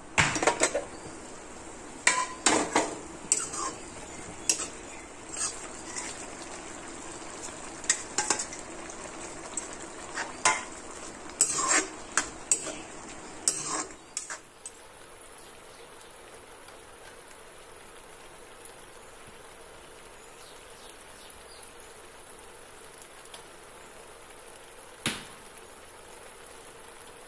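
Metal clanks and clinks of a lid and utensils against an aluminium kadai, over fish curry sizzling as it simmers. About halfway through the clanking stops, leaving a steady low sizzle with one more clink near the end.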